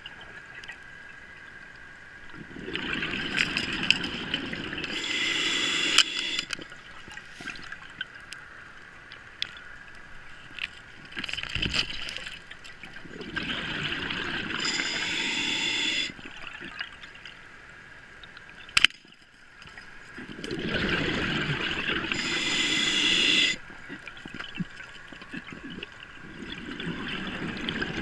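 Scuba diver breathing through a regulator underwater: a noisy rush of breath and bubbles every seven or eight seconds, each ending in a hiss. One sharp click stands out about two-thirds of the way through.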